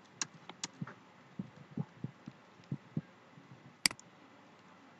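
Scattered, irregular clicks of a computer keyboard and mouse, mostly soft with a dull low thump, with one sharper click near the end.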